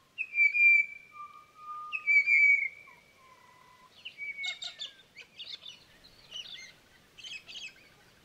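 Birds calling: two loud, clear whistled notes, slightly falling, about half a second in and again at two seconds, with lower whistles between, then a run of quieter quick chirps and chatter from about four seconds in.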